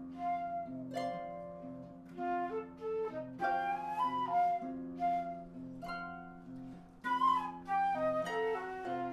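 Flute and harp playing a duet: the flute carries the melody in held and moving notes over plucked, ringing harp notes and chords.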